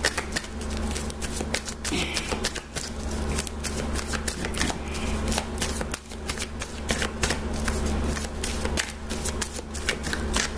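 Tarot deck being shuffled by hand, a fast run of card clicks as the cards strike and slide against one another.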